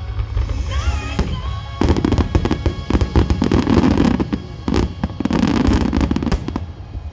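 Fireworks display: about two seconds in, a rapid barrage of bangs and crackles breaks out over music playing through loudspeakers. It goes on for several seconds and then thins out near the end.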